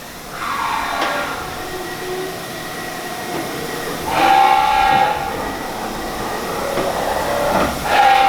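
Haas VF-2 CNC vertical machining center running, its motors giving a whine over a hiss, with pitches that glide up and down. Two louder stretches of a strong whining tone come about four seconds in and near the end.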